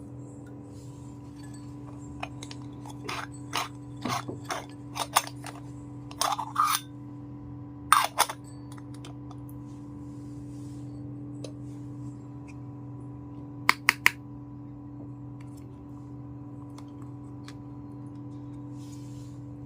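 Small hard pieces of a miniature toy kitchen set clicking and tapping as they are handled, a quick run of about a dozen clicks in the first half and three sharp clicks later. A steady electrical hum lies under it.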